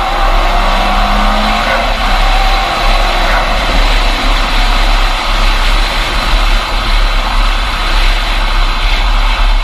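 Car running at speed, its engine mostly buried under steady wind rushing over a camera mounted outside on the bodywork.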